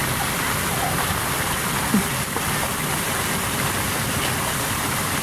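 Splash pad fountain jets spraying water upward and splashing back onto the pad: a steady hiss of falling water.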